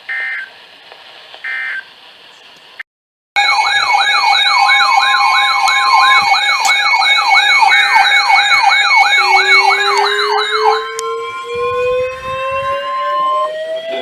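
Two short electronic tone bursts, then, after a brief dropout, several sirens sounding together: one wails quickly up and down about three times a second over steady tones. From about nine seconds in, slower sirens wind up, rising in pitch.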